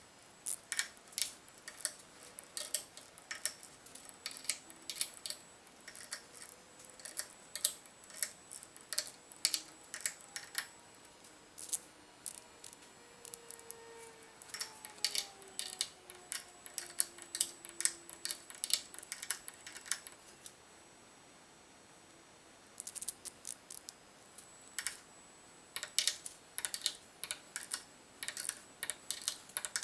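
Ratchet wrench clicking in short irregular runs as the ring gear bolts on a differential carrier are snugged and torqued in steps toward 55 foot-pounds. The clicking stops for about two seconds about two-thirds of the way through, then resumes.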